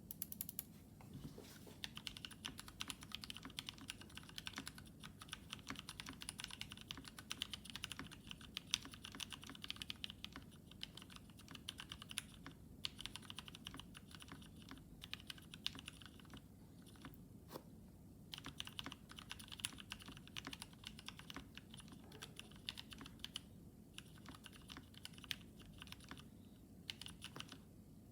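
Continuous typing on a TKC Portico mechanical keyboard with an FR4 plate and lubed, filmed Gateron Ink Black linear switches under PBT keycaps: a fast run of keystrokes with brief pauses, some strokes louder than others.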